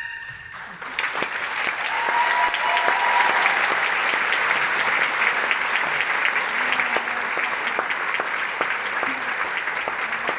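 Audience applauding, the clapping breaking out about a second in as the last note dies away and then going on steadily.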